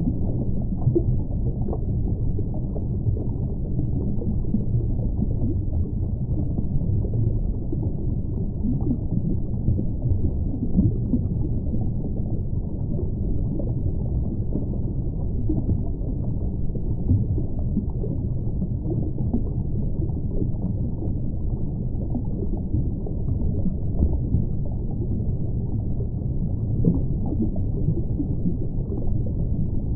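Underwater ambience: a steady, low, muffled rumble with no distinct events.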